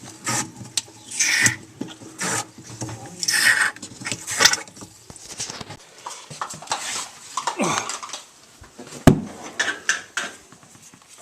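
Turkey baster pumping salt water into a refrigerator's frozen defrost drain tube and sucking it back out, to melt an ice blockage: short wet squirting and sucking noises about once a second, then scattered quieter sounds and a sharp click near the end.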